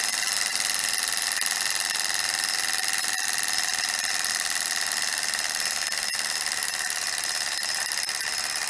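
Small hot-air Stirling engine with twin flywheels running very fast on the heat left in it after the burner is blown out: a steady, high-pitched mechanical whir, slowly dropping in pitch and level as the engine slows down.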